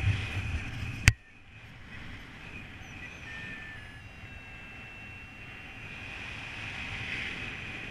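Airflow rushing over the microphone of a paraglider in flight. About a second in, a sharp click cuts it short, and the rest is a faint hiss with a thin steady high tone.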